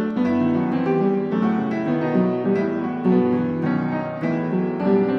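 Background instrumental music: piano playing a steady stream of notes.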